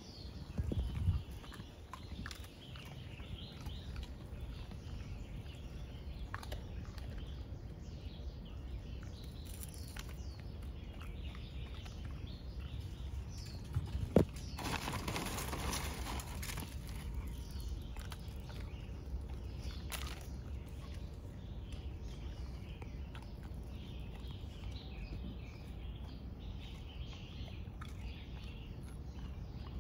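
Outdoor ambience with scattered bird chirps over a steady low rumble, and a few small clicks while a dog eats snacks off the pavement. About halfway through, a plastic food bag rustles loudly for a few seconds.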